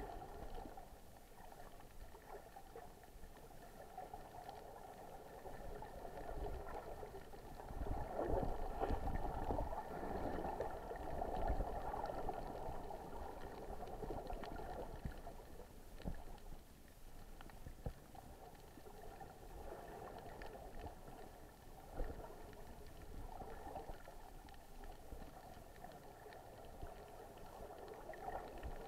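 Muffled underwater sound heard through a camera housing: divers' exhaled air bubbling in surges, loudest a third of the way in, over a faint steady hum, with an occasional short knock.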